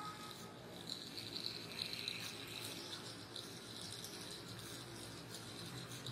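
Faint whirring of a small robot car's DC gear motors as it drives on a tiled floor, with a light rattle.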